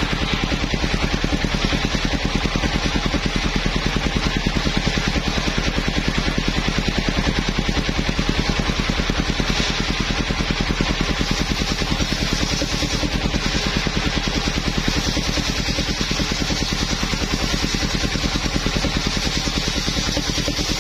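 Engine of a mobile circular sawmill running steadily with a fast, even firing pulse, a constant high hiss over it.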